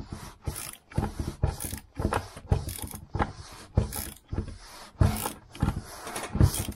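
Ratchet spanner clicking in repeated short strokes, about two a second, as it tightens a nut on a threaded steel stud; the nut is drawing up tight.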